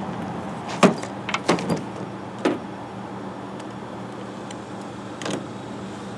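Several short clacks and knocks of tools and parts being handled, with brief whirs of a cordless drill-driver, the loudest clack about a second in.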